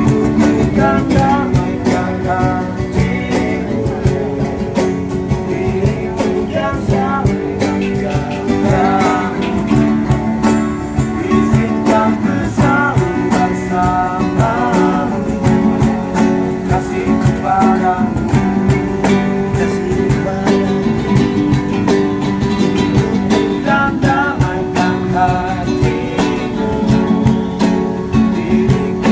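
Street busker music: an acoustic guitar strummed steadily under a wavering melody line.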